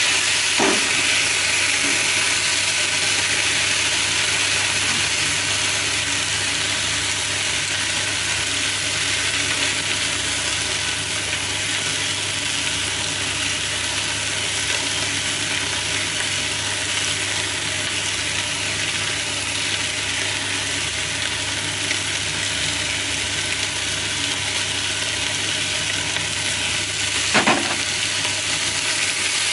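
Julienned new potatoes, green beans and ham sizzling steadily in a frying pan as they are stir-fried with chopsticks. A sharp knock sounds about a second in and again near the end.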